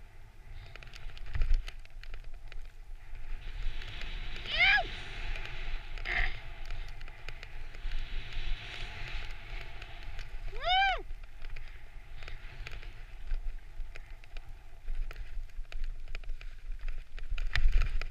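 Skis hissing and scraping through soft, chopped-up snow, with wind buffeting a helmet-mounted microphone. A voice gives two short rising-and-falling whoops, about five and eleven seconds in.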